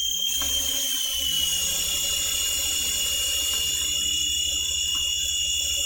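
Toy RC helicopter's small electric rotor motors running under remote control, a steady high-pitched whine that dips slightly in pitch about a second in.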